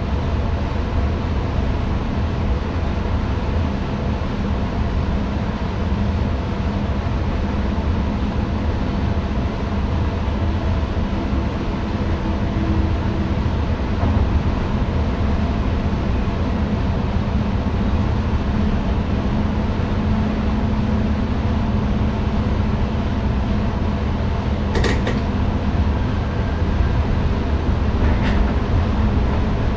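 Steady running noise inside the driver's cab of an NS ICM electric multiple unit under way: a constant low rumble with a steady hum. Two short, sharp clicks stand out near the end, about three seconds apart.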